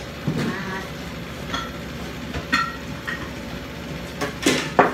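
Kitchen background: a steady hum with a faint steady tone, broken by a few light clinks and then several sharp knocks near the end.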